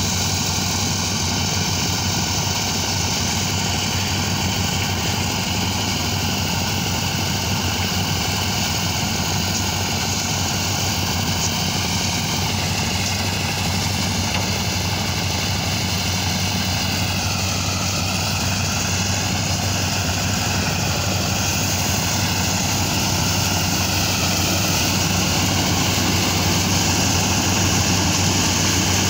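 Small engine-driven soybean thresher running steadily under load as dried soybean plants are fed into its drum. The higher whine wavers in pitch for a stretch in the middle.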